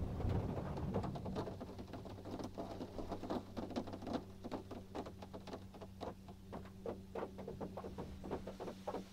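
Tammermatic T700 Lux rollover car wash heard from inside the car: an irregular patter of water and foam spattering on the glass and roof, a few hits a second, over a steady low machine hum.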